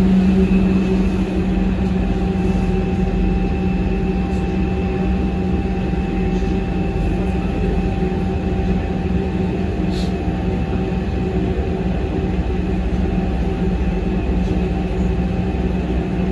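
Lausanne M2 rubber-tyred automated metro train running, heard from inside the front of the car. It is a steady rumble and hum with a few constant steady tones, and one click about ten seconds in.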